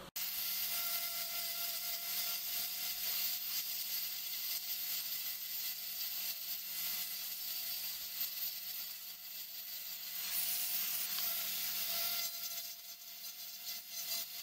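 Small rotary tool with a sanding drum running steadily while it sands a small wooden piece, a constant hiss with a thin motor whine under it; it eases off a little near the end.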